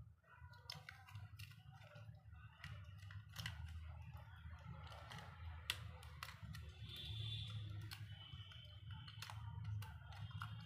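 Scattered small clicks and taps of a plastic keypad mobile phone's parts being handled and fitted back together, over a steady low hum.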